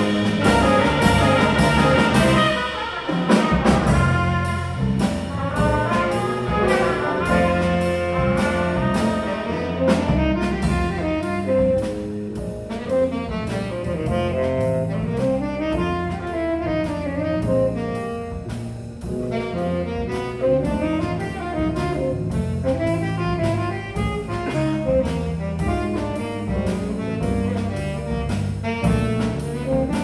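Small jazz combo playing live: trumpets and saxophone sound together for the first few seconds, then a saxophone carries the melody over piano, electric guitar and drums.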